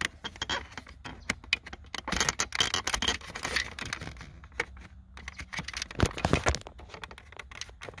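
Irregular plastic clicks, taps and scrapes as hands work a control cable into place behind a car's climate control module, with a few louder knocks about six seconds in.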